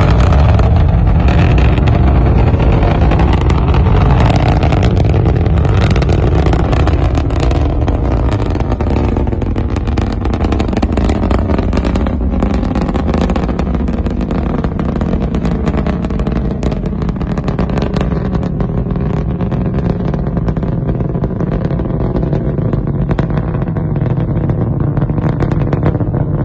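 A rocket's exhaust rumbling after liftoff: a loud, deep rumble shot through with crackling, slowly fading as the rocket climbs away.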